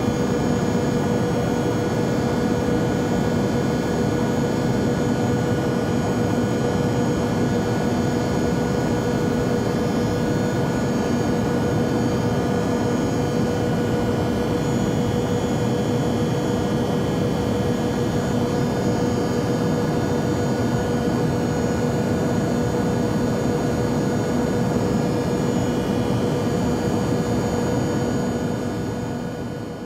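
Cabin noise inside a Learjet business jet in flight: a steady jet-engine and airflow rush with a constant hum and whine, fading out near the end.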